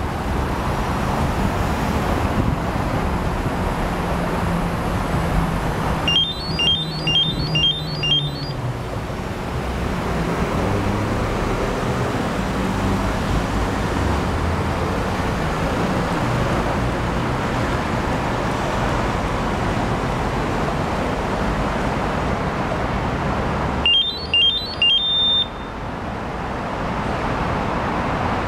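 Mobike smart lock beeping while it unlocks: a run of about six short, high electronic beeps, and later three more beeps ending in a slightly longer tone. Steady street traffic noise runs underneath.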